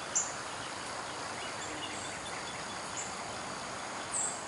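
Small birds giving short, high chips, about five over the few seconds, the loudest shortly after the start and near the end, over a steady outdoor background hiss.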